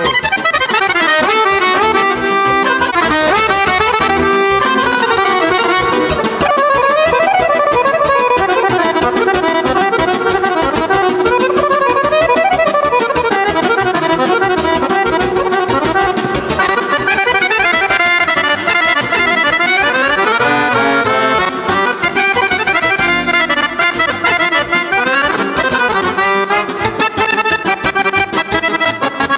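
Accordion-led traditional folk music played loud and without a break, with fast runs of notes sweeping up and down.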